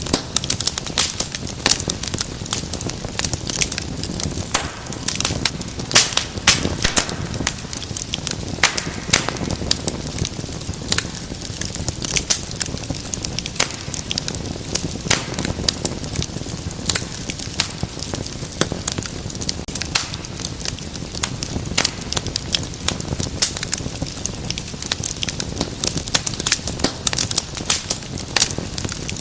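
Wood fire burning in a fireplace: a steady low rush of flames under dense, irregular crackles and sharp pops, several a second.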